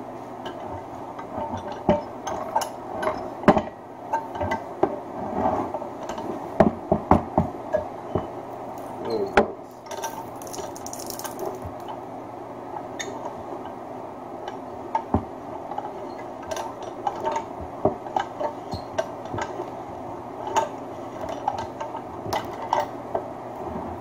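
Hand-cranked wire stripping machine being turned as insulated wire feeds through its blade and rollers: irregular clicks and knocks from the mechanism, with no steady rhythm.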